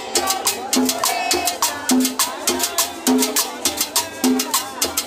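Cumbia played by a band: a quick, steady beat of sharp percussion strikes over a repeating bass line.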